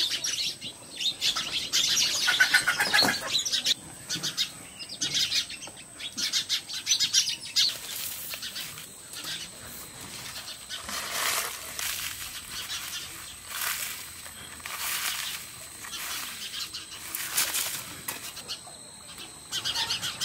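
Burnt oyster shells crackling and rustling as they are crumbled by hand into powdered lime: dense crackling over the first several seconds, then a few separate short rustles. Birds chirp in the background.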